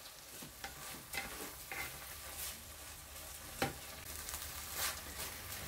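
Wooden spoon stirring rice through a thick tomato sofrito in a non-stick pan: faint frying sizzle with scattered light scraping ticks, and one sharper tick about three and a half seconds in. The rice is being sautéed in the sofrito so it takes up the flavours.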